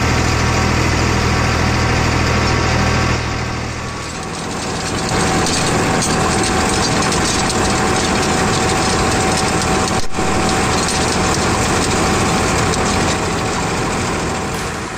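Farmtrac 60 Classic tractor's diesel engine running with a steady hum. About three seconds in, the sound changes to the tractor working a rotavator: the engine under load and the PTO-driven rotavator blades churning and throwing dry soil, a dense noisy clatter.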